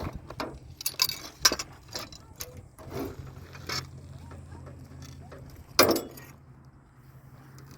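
Irregular knocks, clicks and clatters, the loudest about six seconds in.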